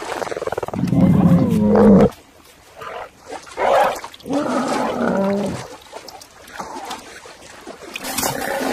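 Sound-designed courtship calls of Hynerpeton, an extinct early amphibian, the male and a female calling to each other. A loud pitched call lasts about two seconds, several shorter calls come a few seconds later, and another starts near the end.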